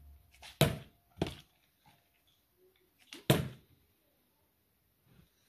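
Partly filled plastic water bottle being flipped: three sharp plastic knocks, about half a second, a second and three seconds in. The last knock is the bottle landing upside down on the cap of a plastic milk bottle.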